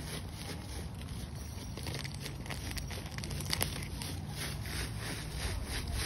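Fallen autumn leaves rustling and crunching underfoot, a quick run of crackly steps through the leaf litter, over a steady low wind rumble on the microphone.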